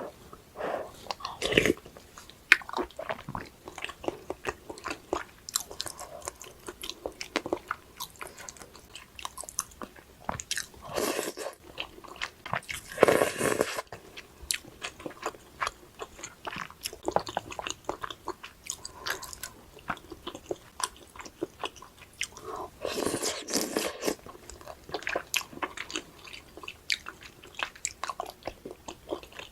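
Close-miked eating: a person biting and chewing, with many small crunches and wet mouth clicks, and a few longer noisy bursts near the middle and about three-quarters of the way through.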